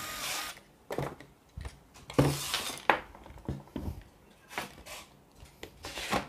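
Handling clatter as the plastic housing halves of a WORX WU326P rotary hammer are worked apart by hand on a wooden bench: irregular clicks, knocks and rattles of plastic parts, with two sharper knocks a little past two and about three seconds in.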